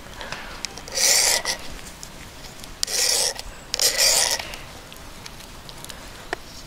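Ferrocerium fire-starter rod scraped hard with a metal striker three times, each stroke a short rasp about half a second long, throwing sparks onto a bundle of wood shavings to light a fire.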